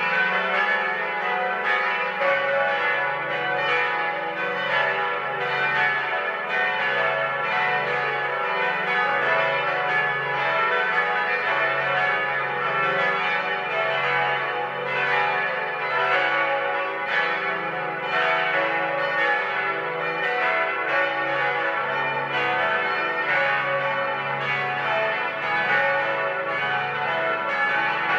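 Eight church bells of an abbey peal ringing together, tuned F-sharp, A, C-sharp, E, F-sharp, G-sharp, A and B, their strikes overlapping continuously in a dense, unbroken peal.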